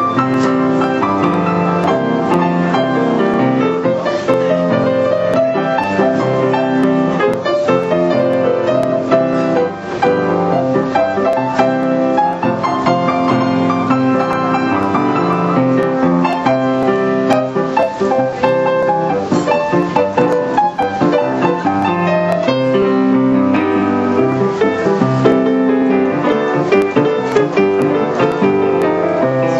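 Live piano playing, a continuous accompaniment of chords and melody without a break.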